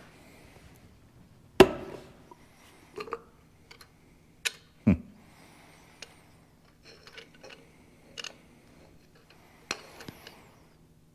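Metal clicks and knocks of hand tools and diesel injection pump parts being handled on a workbench: a dozen or so separate strokes at uneven intervals, the loudest about one and a half seconds in.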